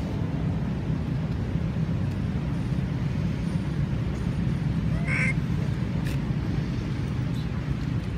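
One short, high squeaking call from a long-tailed macaque about five seconds in, over a steady low rumble.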